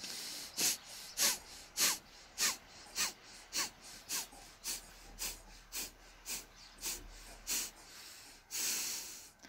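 A woman doing Kapalabhati fire breathing: quick, forceful exhalations through the nose, each a short sharp puff, at a little under two a second, with passive in-breaths between. One longer breath comes near the end.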